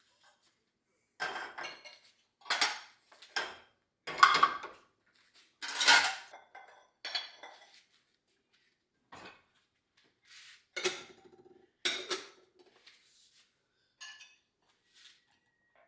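Dishes and cutlery knocking and clinking as they are handled, in a string of separate knocks. Two of them ring briefly near the end.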